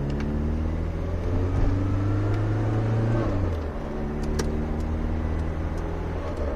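Citroën BX 14's 1.4-litre petrol engine heard from inside the cabin, pulling at full throttle in fourth gear with a slowly rising engine note that falls away about three and a half seconds in, then runs on steadily.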